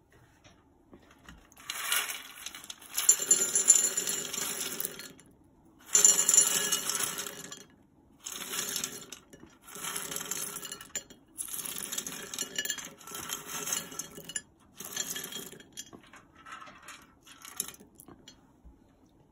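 Roasted chickpeas poured from an air fryer basket into glass bowls, rattling and clinking against the glass. The pouring comes in about five bursts of a few seconds each, and the last ones are fainter.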